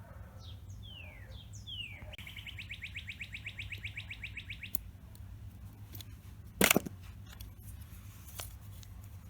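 A bird calls: a few quick falling chirps, then a fast, even trill lasting about three seconds. A single sharp click sounds about two-thirds of the way through, over a steady low hum.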